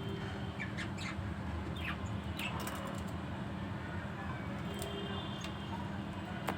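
Budgerigars giving short chirps and squawks over a steady low background hum.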